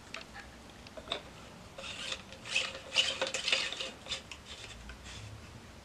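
Plastic trumpet stand being assembled by hand: a few small clicks, then rubbing and scraping about two to four seconds in as the plastic legs are worked into the sockets of the stand's cone.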